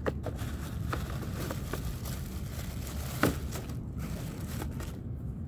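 Shoe box and its wrapping being handled: rustling and crinkling with a few short knocks, the sharpest about three seconds in, over a low steady rumble.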